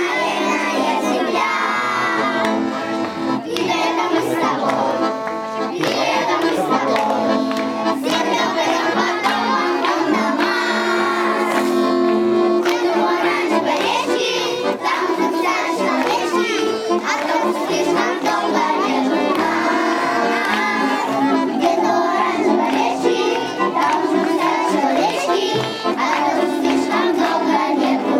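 Children singing a song together with instrumental music.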